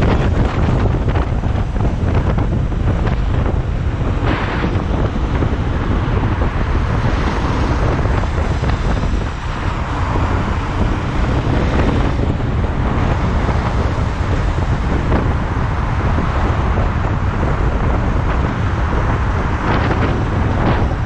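Wind buffeting the microphone: a loud, continuous low rumble with gusty noise over it, fading slightly about nine seconds in.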